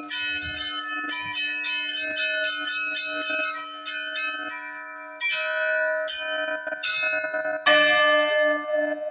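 Bells being struck, rapid overlapping rings over a steady low hum. In the second half come four louder single strikes, each left to ring out.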